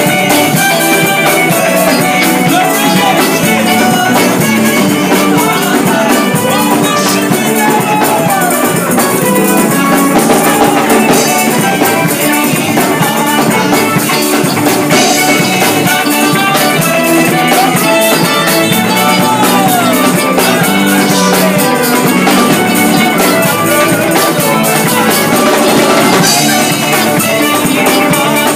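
Live gospel band playing loudly: a drum kit with cymbals, electric guitars and a bass guitar in a steady, driving groove.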